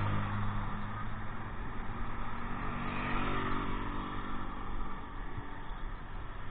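Passing road traffic: a bus's low engine hum fades as it draws away in the first couple of seconds, then a motor scooter's small engine passes close by about three seconds in.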